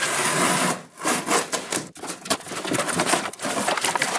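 Scissors slicing through the packing tape on a cardboard box, a continuous rasp for most of the first second, then cardboard flaps and paper packing scraping and rustling in quick strokes as the box is pulled open.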